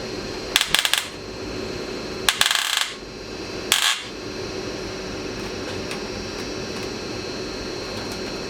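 Hand-tool work on small metal screws in a headlight surround: three short bursts of clicking and rattling, about half a second in, around two and a half seconds, and near four seconds, over a steady hum.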